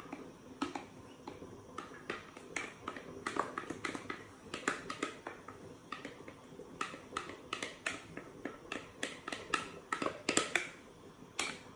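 A metal spoon scraping and tapping against the rim and inside of a glass mixing bowl as batter is pushed out into a frying pan: a run of light, irregular clicks, some in quick clusters.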